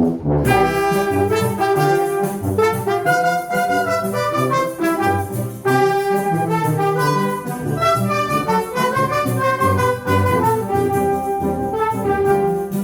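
A wind band of brass and reeds, brass to the fore, playing a lively choro arrangement in full ensemble. The band comes in together about half a second in.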